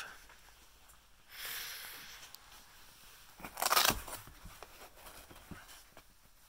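Brown paper bag crinkling and padded reel cases rustling as a hand rummages inside the bag, loudest a little past halfway, followed by a few light clicks.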